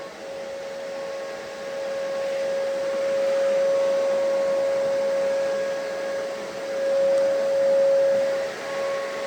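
A small motor running with a steady whine over a hissing rush of air, briefly dipping near the end.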